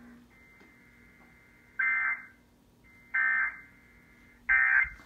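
Emergency Alert System end-of-message (SAME EOM) data bursts: three short, harsh electronic warbling tone bursts about a second apart, closing out the severe thunderstorm warning.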